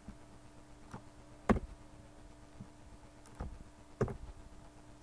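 Scattered clicks of a computer mouse and keyboard, four in all, the second the loudest, over a faint steady hum.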